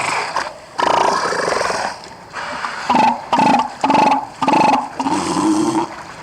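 Adult northern elephant seal belching close up: one long, throaty pulsed belch about a second in, then a run of shorter belches about two a second from about three seconds in.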